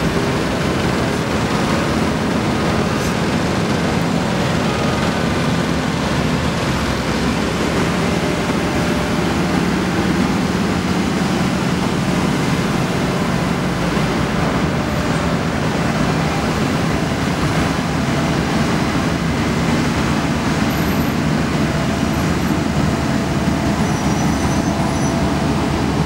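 Steady drone of diesel road-works machinery: an Ammann tandem asphalt roller compacting fresh asphalt, with a paver and passing traffic mixed in.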